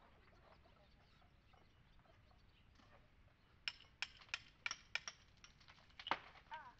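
Hand chisels chipping old mortar out from between the stones of a stone wall: a run of about ten sharp, uneven clinks that starts about halfway through, the loudest one near the end.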